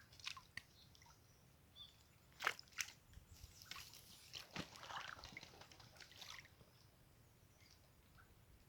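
Faint scattered splashes and drips of water, a few short sharp ones with a busier patch in the middle.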